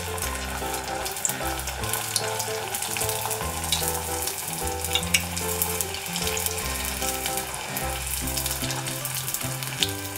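Small semolina puris deep-frying in hot oil: a steady sizzle with scattered crackling pops as they are pressed under the oil with a wire strainer to make them puff up. Background music with slow, changing notes plays under the frying.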